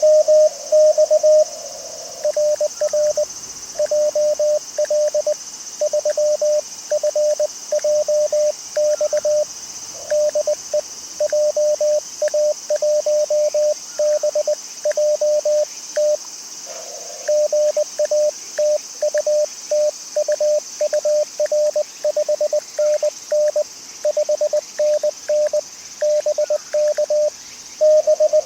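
Morse code (CW) from an amateur radio transceiver: a single tone of about 600 Hz keyed on and off in fast dots and dashes. The keying is louder about the first second and a half and again near the end, and softer in the long middle stretch, as when the operator's own sidetone alternates with a received station.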